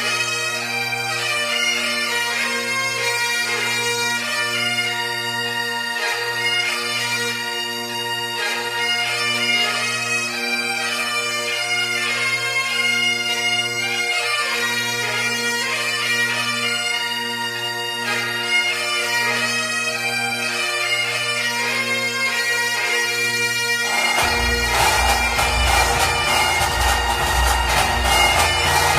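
Bagpipe music: a melody played over steady, unchanging drones. About 24 seconds in, the drones drop out and the sound turns denser, with heavy low drum beats.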